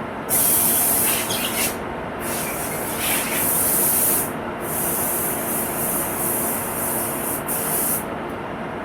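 Compressed-air paint spray gun spraying in three long hissing passes, with short breaks between them, over a steady background hum.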